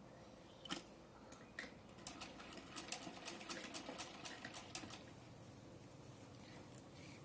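Old domestic sewing machine turned by its hand wheel, stitching: a few single clicks, then a run of quick, light clicks, about five a second, lasting about three seconds and stopping about five seconds in.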